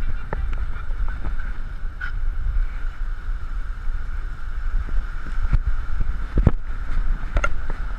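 Wind buffeting the microphone of a GoPro worn on a greyhound's harness as she moves, a steady low rumble broken by several short knocks from the camera and harness jostling.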